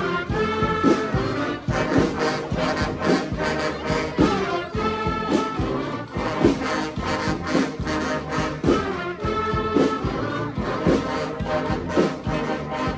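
Brass street band playing an upbeat funk tune: trombones and trumpets in full ensemble over a steady, regular beat.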